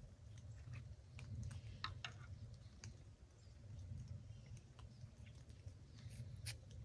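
Quiet outdoor ambience: a steady low rumble with scattered faint clicks and ticks.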